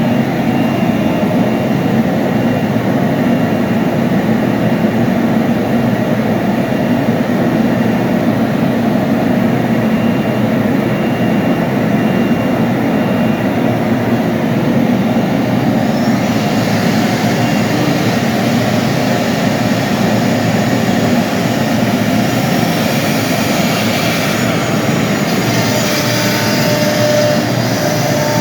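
CNC milling machine running, a loud steady noise. About halfway through, a brighter hiss joins it, and two steady tones come in near the end.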